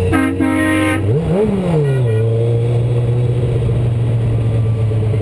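Kawasaki ZX sport bike's inline-four engine running at low parade speed, with a quick throttle blip about a second in that rises and falls in pitch before settling back to a steady drone. A horn sounds for about a second at the start.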